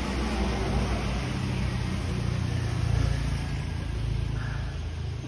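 An engine running steadily, a low rumble that swells a little midway through.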